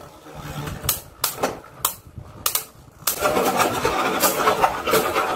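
Beyblade Burst spinning tops battling in a plastic stadium: sharp clicks as they strike each other, then from about three seconds in a continuous fast rattling as they grind and clash at close contact.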